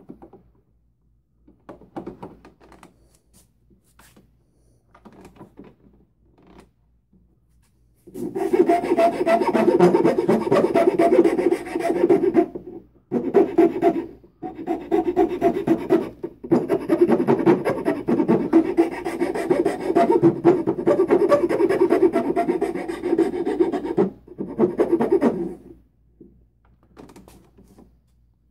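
After some faint handling knocks, a hand file scrapes across the wooden slingshot fork in rapid continuous strokes, rounding over its corners. It breaks off briefly a few times and stops a couple of seconds before the end.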